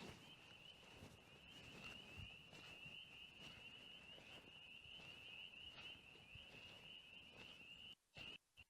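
Faint chorus of spring peepers (tree frogs): a steady mass of high peeping calls, the sign that spring is near. It cuts off abruptly near the end, with two short snatches after.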